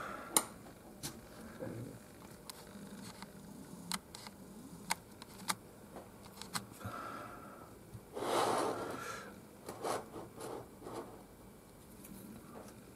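Faint handling noises at a work table: scattered light clicks and taps, and a brief rustling scrape about eight seconds in.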